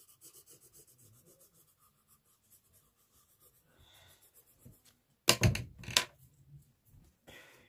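Faint pencil strokes on drawing paper, then two loud knocks about five and six seconds in.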